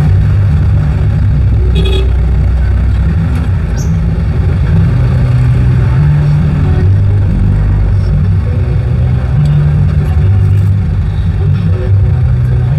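Jeepney's diesel engine running loud and low, heard from the front seat of the open cab, its pitch rising and falling several times as the vehicle speeds up and slows in town traffic. A short high chirp sounds about two seconds in.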